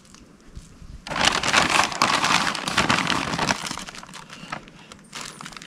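Plastic bags crinkling and rustling as they are picked up and handled, starting suddenly about a second in and dying down near the end.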